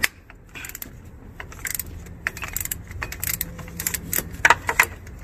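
Metal clinks and clicks of a socket wrench and a cheater pipe on a bolt as the air-conditioning compressor's mounting bolt is broken loose. The clicks come in short irregular clusters, most of them from about a second and a half in.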